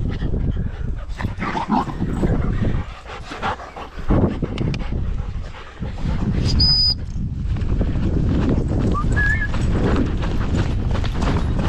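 Dogs running and panting close to a body-worn camera, with rhythmic footfalls and a few brief high chirps.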